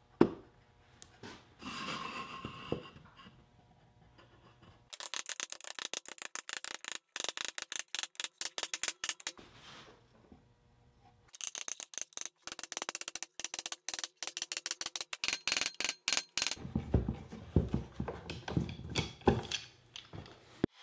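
Glue-up of a dovetailed wooden box: a few knocks, then long runs of rapid clicking and rattling, and low thumps near the end as the box is pressed together and bar clamps are set on it.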